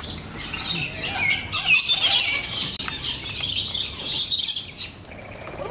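A flock of parrots chattering and squawking, the calls thickest and loudest from about a second and a half in until shortly before the end. A steady high thin whine runs underneath.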